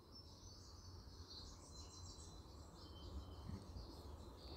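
Faint songbird chirps, trills and thin whistled notes from several small birds in a morning chorus, over a low steady rumble.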